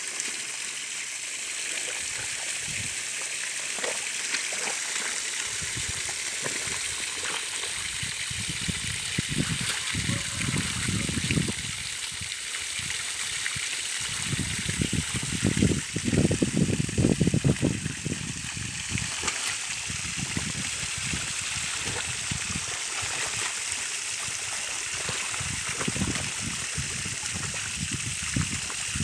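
Water from a hose spraying onto wild boars and splashing on rock and mud: a steady hiss, with louder, deeper stretches around ten and sixteen seconds in.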